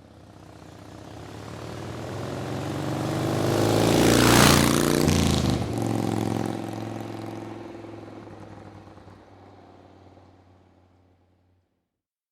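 A motor vehicle driving past: its engine grows louder over about four seconds, drops in pitch as it passes, then fades away.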